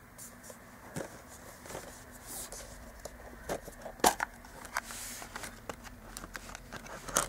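Handling noise from a metal Blu-ray steelbook case being opened and its discs handled: a run of scattered clicks, taps and light rustles, the sharpest click about four seconds in and another near the end.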